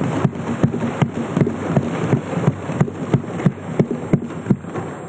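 Assembly members applauding by thumping their desks: an irregular run of sharp knocks, about three or four a second, over a dense noisy wash. It dies away near the end.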